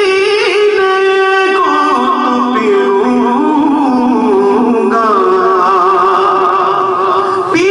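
A man singing a naat, holding long wavering notes that slide between pitches, with brief breaths between phrases.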